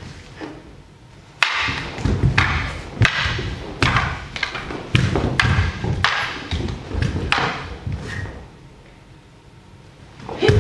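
Wooden practice swords (bokken) clacking together and bare feet stamping on a wooden floor during a paired kata: a run of sharp knocks and thuds that ring briefly in a large hall, quieter near the end.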